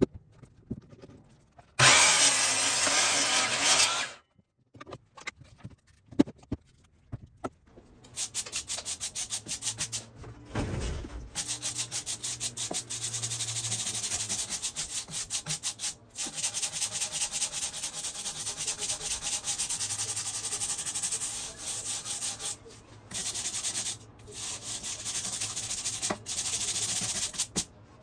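Steel wire brush scrubbed rapidly back and forth over the bark of a log held in a bench vise: a steady rhythm of rasping strokes, several a second, with a few short pauses. About two seconds in there is a separate, louder two-second burst of noise.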